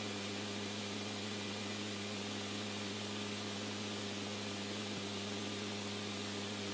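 Steady static hiss with a constant low hum underneath, unchanging throughout.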